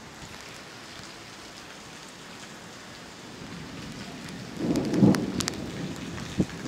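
Steady rain falling, with a rumble of thunder that builds about four seconds in and is loudest about a second later.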